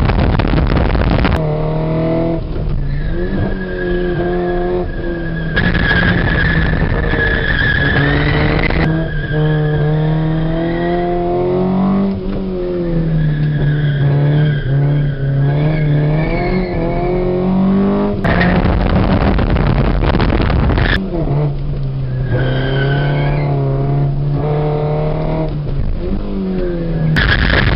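Fiat Cinquecento's 1.2 16V four-cylinder engine working hard on a race circuit, its pitch rising and falling with throttle and gear changes, with tyres squealing through corners. At a few points the engine is drowned by a loud rush of wind noise.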